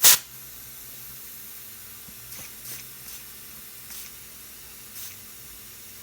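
Compressed air from an air hose chuck hissing into a bicycle inner tube's valve in short bursts as the tube is inflated: one loud burst right at the start, then fainter short puffs about once a second.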